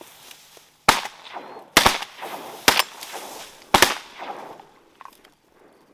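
Two hunters' shotguns firing a quick volley of about six shots in three seconds, two of them in close pairs where both guns go off almost together.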